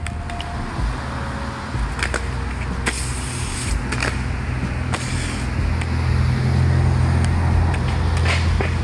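Aggressive inline skate wheels rolling on concrete with a steady low rumble. There are sharp clacks and a brief scrape as the skates hit and slide along a concrete ledge a few seconds in. The rumble grows louder near the end as the skater rolls away.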